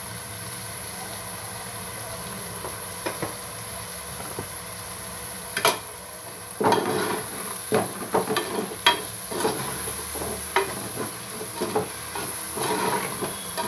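Chopped tomatoes, onions and mint frying in oil in a pot with a steady sizzle. About halfway through there is a sharp knock, and then a plastic spoon stirs, scraping repeatedly against the pot.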